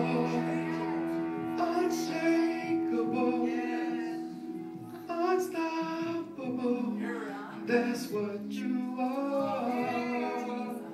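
Christian worship song: a woman singing a slow melody over sustained instrumental chords.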